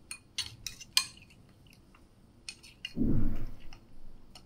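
Steel spoon clinking and scraping against a ceramic bowl while stirring a thin sauce: a quick run of light clicks, a few more later, and a louder, duller scrape about three seconds in.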